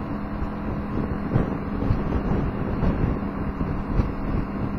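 Honda Helix scooter's single-cylinder engine running at a steady cruising speed, a constant hum under wind buffeting the microphone.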